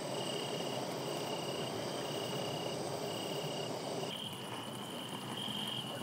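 Crickets chirping at night in long, even trills with short gaps between them, over a steady background hiss that drops away about four seconds in.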